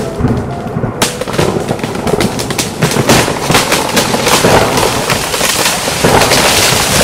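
Thunderstorm sound effect: a lightning strike with loud, dense crackling thunder that runs on for several seconds and fades out at the very end.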